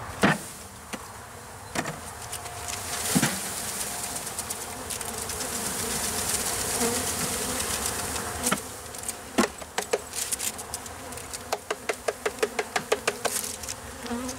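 A mass of honeybees buzzing as a package of bees is dumped into a wooden top bar hive. The wooden package box is knocked against the hive to shake the bees out: several sharp knocks, then a quick run of taps near the end.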